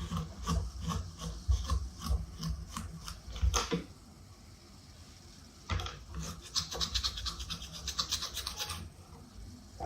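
Cotton rubbing over a table-fan blade in repeated wiping strokes, with light handling knocks. After a short lull in the middle there is a spell of faster, brisker scrubbing.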